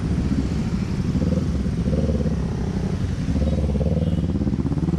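Yamaha NMAX scooter's single-cylinder engine running at low speed through slow traffic, its pitch rising and falling a little with the throttle.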